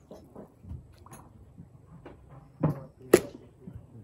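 Two knocks about half a second apart, roughly three seconds in: a duller thud, then a sharper, louder knock.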